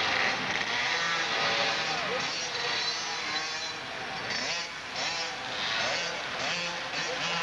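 Small 50cc two-stroke youth dirt bike engines revving up and down as the bikes ride past, with voices in the background.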